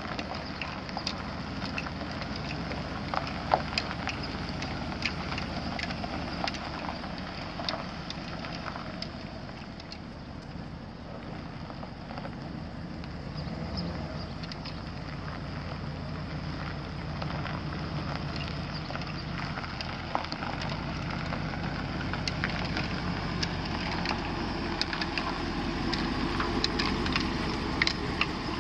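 2007 Chevrolet Silverado 3500HD's gas 6.0L V8 idling steadily, with scattered sharp clicks and crackles over it. The low engine sound grows fuller about two-thirds of the way through.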